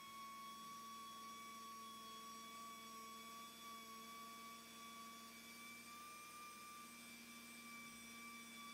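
Near silence, with only a faint, steady high-pitched hum.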